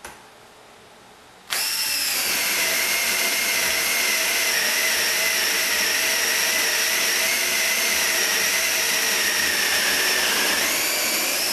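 Makita DF030DW 10.8-volt cordless drill/driver on its 1300 RPM high-speed setting, boring a 5/8-inch paddle bit through a 2x6 board. It starts suddenly about a second and a half in and runs steadily for about nine seconds, rising slightly in pitch near the end.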